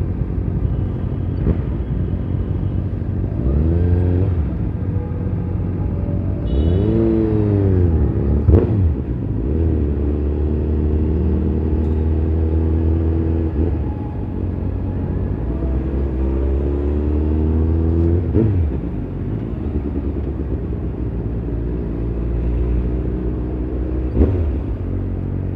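Vehicle engine in traffic, revving up and down several times with steadier stretches between, and a couple of sharp cracks, one about eight seconds in and one near the end.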